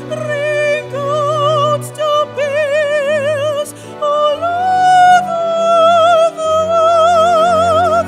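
A woman sings solo in a classical, operatic voice with wide vibrato, over sustained keyboard chords. She sings several short phrases, then holds one long note through the last few seconds.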